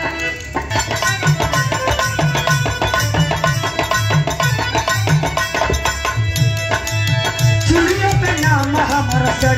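Live folk music: a hand drum playing a quick, steady rhythm under held melody notes. About eight seconds in, a woman starts singing over it through the stage microphone.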